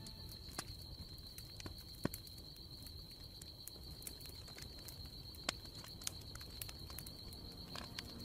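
Sparse, sharp, isolated clicks, about a dozen at irregular times, over a faint steady hiss and a thin high whine.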